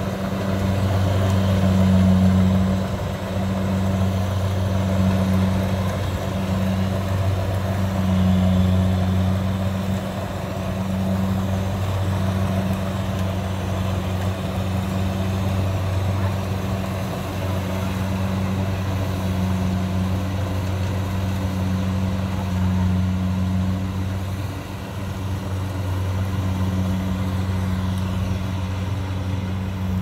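Kubota DC70 Plus combine harvester's diesel engine and machinery running steadily under load as it cuts lodged, flattened rice.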